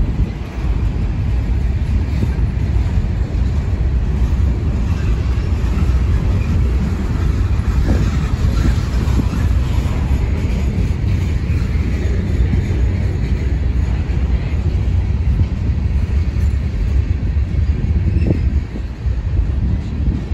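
Freight cars, covered hoppers and a tank car, rolling past close by: a steady rumble of steel wheels on the rails, with an occasional knock.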